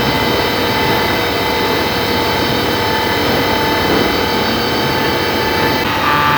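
Hitachi Seiki VM50 vertical CNC mill cutting a steel mold with a 12 mm end mill at 2200 rpm: a steady, loud cutting noise with a mix of held whining tones. The tones shift about six seconds in.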